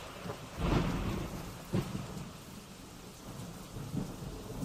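Steady rain falling on a wet street, with the swish of a passing car's tyres through standing water about a second in and a tram rolling past near the end.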